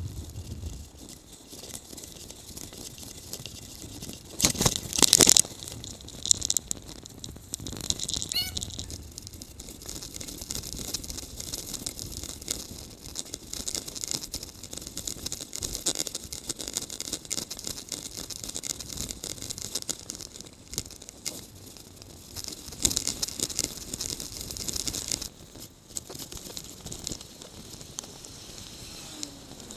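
Bicycle rattling over the road as heard through a handlebar-mounted camera, with a steady hiss of wind and tyre noise and many small knocks. There is a louder clatter about five seconds in.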